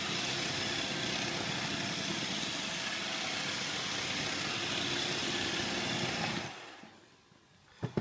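iRobot Roomba 555 robot vacuum running over a wooden floor. The steady noise comes from its vacuum fan and brushes, with a newly fitted bin and fan in place. The sound fades away about six seconds in.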